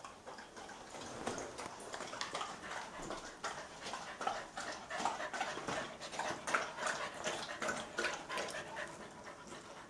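A collie and a Belgian Tervuren puppy panting at close range, with many short clicks and scuffs among the breaths.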